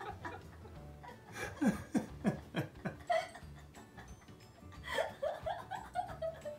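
A person laughing in two bouts: a run of about five short bursts, each falling in pitch, about a second and a half in, then a second, higher run near the end.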